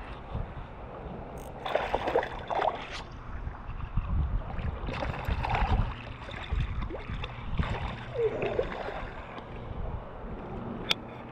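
Water splashing and gurgling around a kayak in three bursts as a hooked smallmouth bass is played on the rod, over a steady low rumble.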